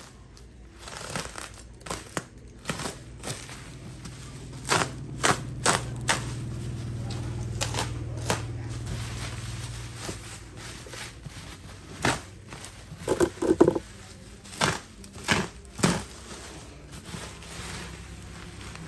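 Plastic bubble wrap crinkling and crackling as it is slit with a utility knife and pulled off a cardboard box, with sharp crackles throughout and the loudest cluster about two-thirds of the way in.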